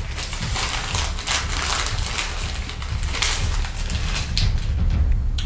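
Thin clear plastic bag rustling and crinkling in irregular bursts as a hand digs into it and pulls out wasabi-coated peanuts, over a steady low hum.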